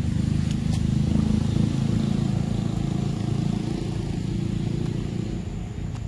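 Low steady engine drone of a motor vehicle, swelling in the first second and fading toward the end.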